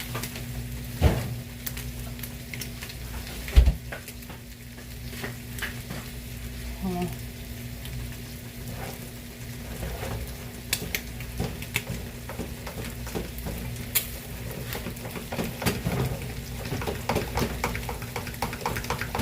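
Turkey bacon sizzling in a frying pan, with a fork clinking and scraping in a bowl as pancake batter is stirred. Two loud knocks come in the first few seconds, and quick light tapping of the fork builds up near the end.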